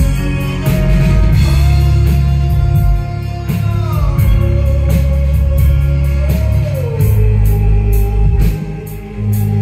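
Live band music: a bowed violin holds long notes that slide down in pitch a couple of times, over heavy bass and a drum kit.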